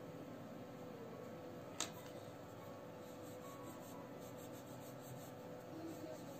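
Faint scratching of a pencil tip stroking over drawing paper, with a single click about two seconds in.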